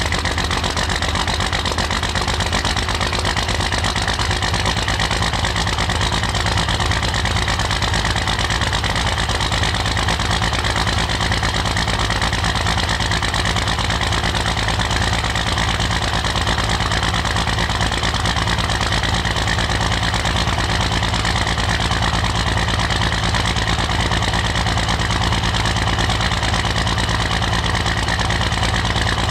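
First-generation Dodge Ram's Cummins 5.9-litre inline-six turbodiesel idling steadily and low, around 425 rpm, heard at the tailpipe. It is a cold idle minutes after a start at about −6 °F with the engine not plugged in.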